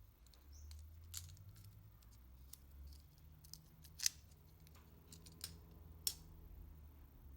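Scattered sharp clicks and light ticks from handling the metal parts of a Singer 99 sewing machine, the two loudest about four and six seconds in, over a faint low hum.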